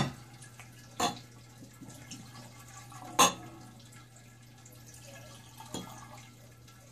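Cognac being poured from a glass bottle into two snifter glasses, a faint trickle broken by a few sharp glass clinks.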